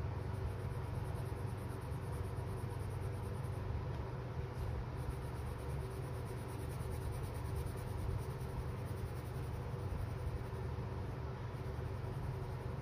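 Deli watercolour pencil scratching back and forth on paper as a colour swatch is shaded in, over a steady low hum.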